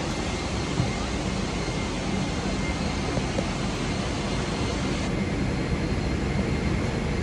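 Steady rushing hiss of an Air Canada airliner's cabin air conditioning at the gate during boarding, with a low hum and a faint high whine underneath.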